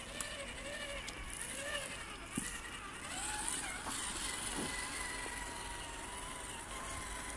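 Electric motor and geartrain of a Traxxas TRX-4 RC crawler whining as it drives, the whine gliding up and down in pitch with the throttle. A few sharp clicks and snaps of the tyres on dry twigs and pine cones come through.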